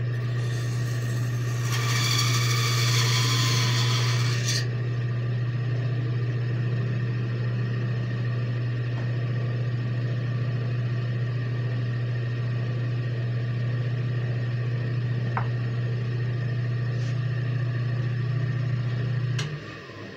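Bandsaw running with a steady motor hum. From about two seconds in, for a little over two seconds, the blade cuts through a wooden block with a hissing rasp. Near the end there is a click and the hum stops as the saw is switched off.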